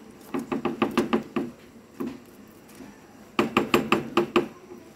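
A plastic scoop and spoon knocking as sticky palm sugar is shaken and scraped off into a pot. There are two runs of about eight quick knocks, each lasting about a second, with a single knock between them.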